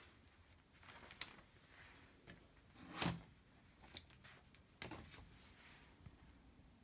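A few faint, short taps and rustles over a quiet room, the loudest about three seconds in.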